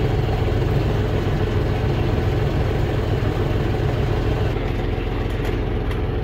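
Small tour boat's motor running steadily, heard from on board, with a constant low hum.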